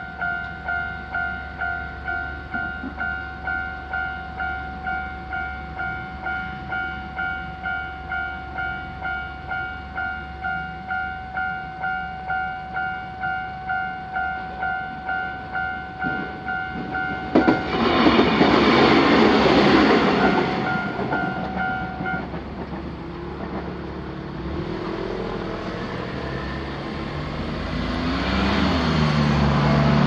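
Japanese level-crossing warning bell ringing in steady electronic two-tone dings, about two a second. About 17 seconds in, a Shizuoka Railway electric train passes loudly for a few seconds, with wheels on the rails. The bell stops soon after, and a road vehicle then passes, its engine pitch rising and falling near the end.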